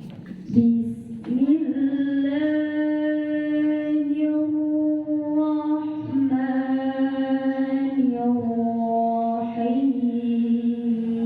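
A young girl's voice reciting the Quran in the melodic tilawah style, starting about half a second in and drawing out long held notes that step up and down to new pitches a few times.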